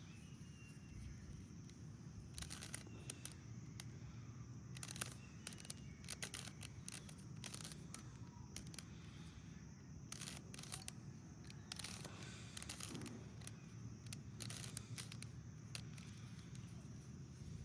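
Rubik's Cube being twisted by hand: irregular clusters of quick plastic clicks as its layers turn, over a low steady background rumble.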